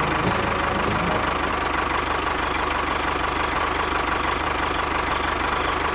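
Small engine-like motor running steadily as the toy tractor drives, a fast even chugging with a faint steady whine.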